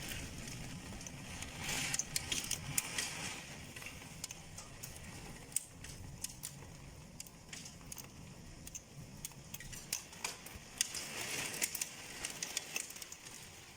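Heavy rain and wind against a window, with many irregular sharp ticks of drops striking the glass and two louder gusty swells of hiss.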